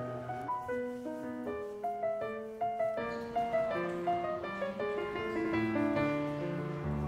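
Background piano music: a run of quick single notes over held low notes.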